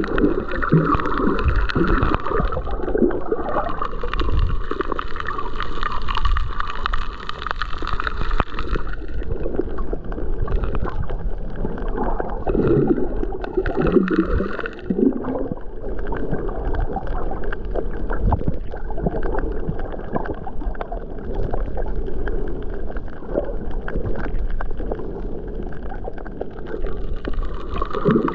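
Shallow seawater heard through an underwater camera: muffled gurgling and sloshing as the surge moves over the reef, with a low rumble. A brighter hiss drops away about a third of the way in and comes back at the end.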